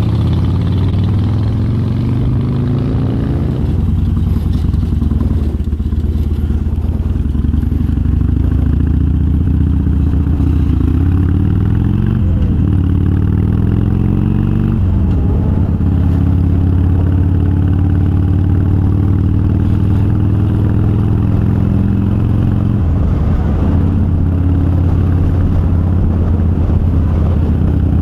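Harley-Davidson Sportster V-twin running through Vance & Hines Twin Slash 3-inch slip-on mufflers with quiet baffles, a deep, mellow exhaust note. The revs fall and climb again several times as it shifts through the gears.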